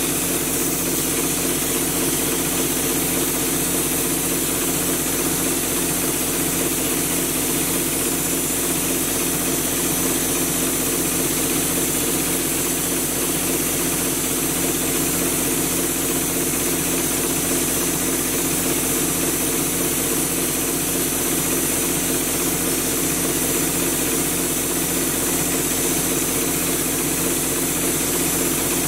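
Drywall texture hopper gun spraying mud with a steady hiss of air, over the continuous hum of the air compressor that feeds it.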